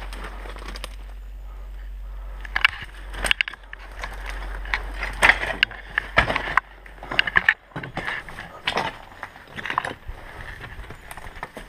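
Footsteps and handling noise of someone moving through a ruined building: irregular knocks, crunches and rustles. A steady low rumble runs underneath and stops a little over halfway through.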